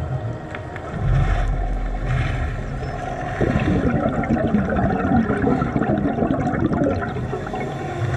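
Underwater scuba breathing heard through a GoPro's waterproof housing: a muffled rumble, then the regulator's exhaled bubbles burbling loudly from about three and a half seconds in.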